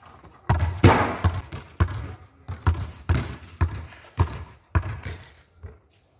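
A basketball bouncing on a hard court, first dropping after a shot, then dribbled: a string of sharp separate bounces about two a second, the loudest about a second in.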